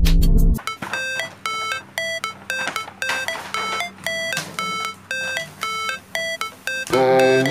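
Background hip-hop music. The beat drops out about half a second in, leaving a high, plinking synth melody of short, bell-like notes. The bass and full track come back near the end.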